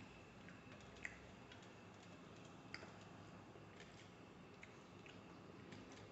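Faint, scattered clicks and ticks of eating by hand from a stainless steel plate: fingers tearing porotta and touching the plate, over near-silent room tone. The sharpest clicks come about a second in and just before the three-second mark.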